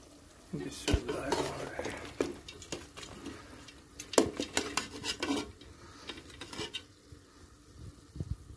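Slotted metal spatula stirring goat mutton in a metal cooking pot, clinking and scraping against the pot in irregular knocks, busiest in the middle.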